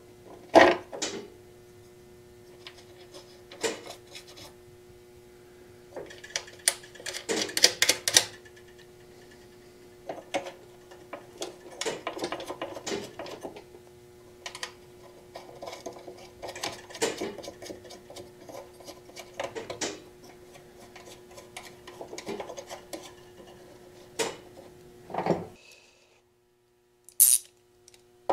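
Handling noises of a metal fuel sending unit plate being fitted with its seal onto a motorcycle gas tank: scattered light clicks, taps and rubbing of metal parts, over a faint steady hum.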